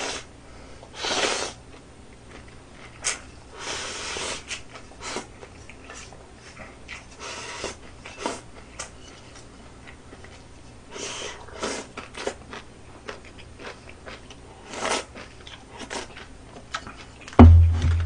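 A person slurping and eating from a bowl held to the mouth, with short slurps every few seconds between small clicks of chopsticks. Near the end there is a loud thump as the bowl is set down on the table.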